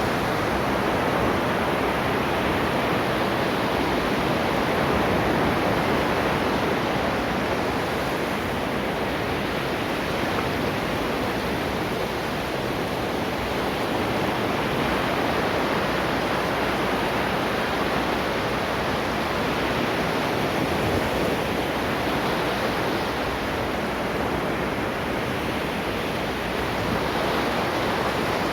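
Ocean waves breaking and washing onto the shore in a continuous rush of surf that swells and eases slowly.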